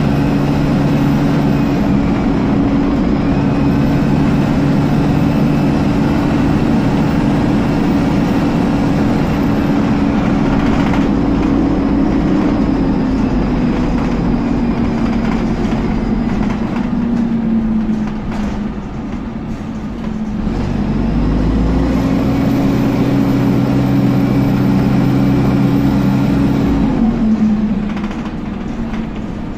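Dennis Dart SLF bus's engine cooling fan whining steadily, heard inside the saloon over the running engine. Its pitch slides down and fades past the middle, spins back up a couple of seconds later, and winds down again near the end, as the fan cuts in and out.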